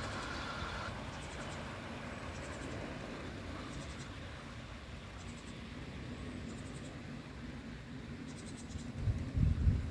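00-scale model train running along the track, a light scraping rattle of small wheels on rail that fades as the train pulls away, with faint high clicks every second or so. Low rumbling bumps near the end.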